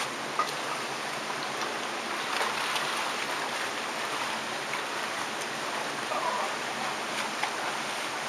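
Shallow river running over rocks, a steady rushing, with a few light splashes and knocks from people wading through it.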